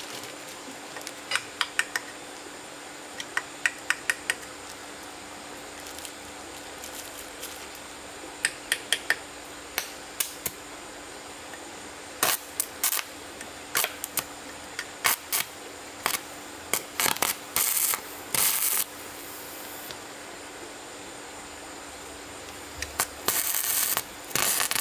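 Sharp taps and clicks of hand-tool work, in quick runs of four to six, with a few short scraping strokes later on and near the end, over a faint steady hum.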